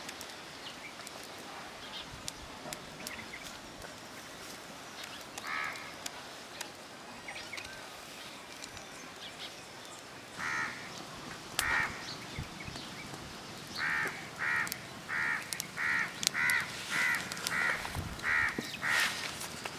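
A bird giving short, harsh calls: one about five seconds in, two more a few seconds later, then a quick run of about ten near the end, roughly two a second. A wood fire crackles faintly underneath.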